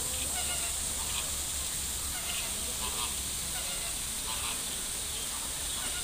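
A flock of flamingos honking: short, goose-like calls scattered throughout, over a steady hiss.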